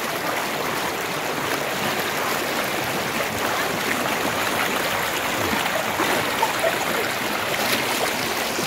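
Shallow stream rapids rushing and splashing over rocks, a steady, even rush of water right at the microphone.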